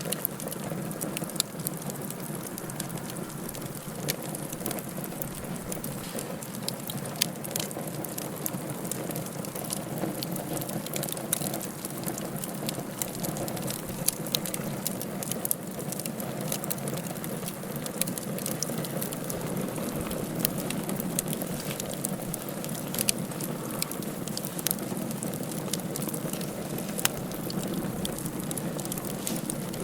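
Wood fire burning in a fireplace: a steady low rush with frequent sharp crackles and pops scattered throughout.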